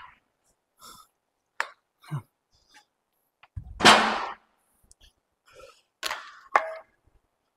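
Weight plates being stripped off a Smith machine barbell and set down: a handful of separate metal clanks and knocks, the loudest about four seconds in, and one near the end that rings briefly.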